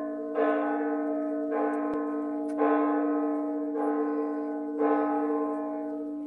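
Church bells ringing, with a new stroke about once a second and each stroke's tone ringing on under the next.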